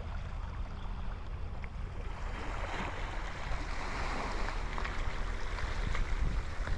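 Road noise inside a moving taxi: a steady low rumble of the engine and tyres with an even hiss over it.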